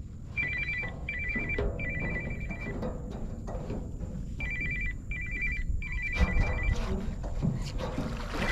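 Mobile phone ringing with a repeating two-tone ringtone, short beeps in groups of three, over wind rumbling on the microphone. Near the end a crab trap thrown on a line splashes into the water.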